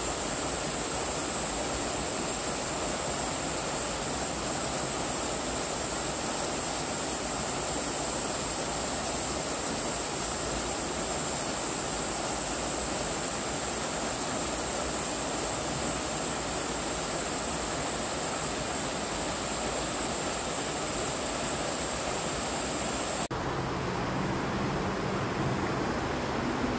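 Small mountain waterfall pouring over rock ledges into a pool: a steady, even rush of falling water. About 23 seconds in it cuts off abruptly and gives way to a softer outdoor hiss with a faint low hum.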